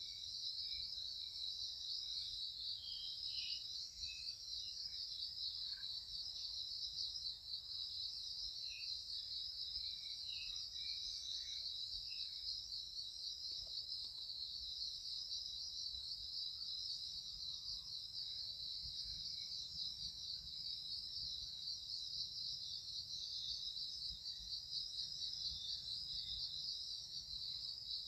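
Steady high-pitched insect chorus, a continuous pulsing trill, with a few faint short chirps in the first half.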